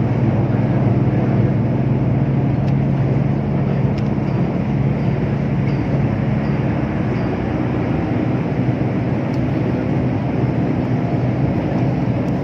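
Steady engine and road noise of a moving vehicle, heard from on board: a continuous low hum over a rushing haze.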